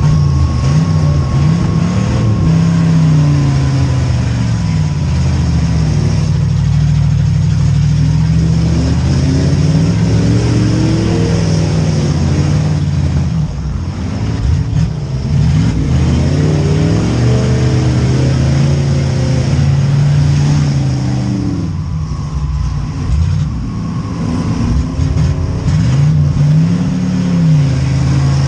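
V8 demolition derby car engines revving hard and falling back again and again, several rising and falling swells over a steady loud running note.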